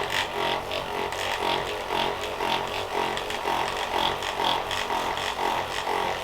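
Electric massager running with a steady motor hum that swells about twice a second as it is worked over the body.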